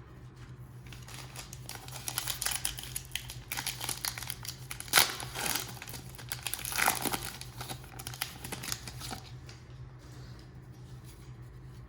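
Foil wrapper of a trading-card pack crinkling and tearing as it is handled and ripped open by hand, in irregular crackles, loudest about five and seven seconds in.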